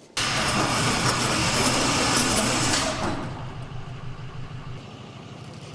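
Hyundai Tucson 2.0 GDI engine coming on suddenly and running loud and high for about three seconds, then dropping to a lower, steadier idle. The engine is misfiring and dead on cylinder number 2.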